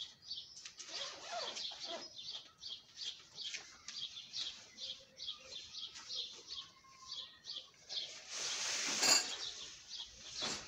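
Rustling and handling of a pop-up tent's fabric carry bag as it is opened and the folded tent is pulled out, with a louder fabric swish about eight seconds in. A bird chirps repeatedly in the background, about twice a second.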